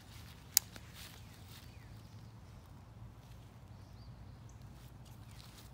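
Faint outdoor ambience: a steady low rumble with one sharp click about half a second in, and a few short, high, falling chirps of small birds.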